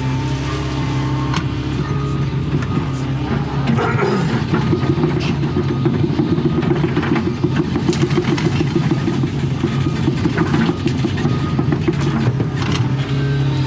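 Doosan excavator's diesel engine running steadily, working harder from about four seconds in, with scattered cracks and snaps of branches and brush being broken up.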